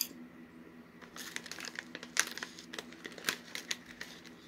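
Thin clear plastic snack bag of popcorn crinkling as it is handled, with a quick flurry of crisp crackles from about a second in. A faint steady hum runs underneath.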